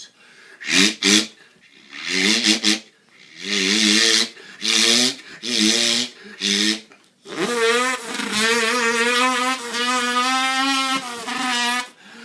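A man's voice imitating a four-stroke dirt bike such as a Yamaha YZ250F: several short revving bursts, then one long held engine note from a little past halfway to near the end.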